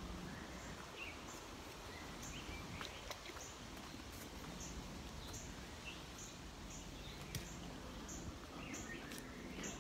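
Jungle ambience: birds chirping, short high chirps repeating roughly once a second with a few lower chirps among them, over a steady low rumble. A few sharp clicks, the loudest a little past seven seconds in.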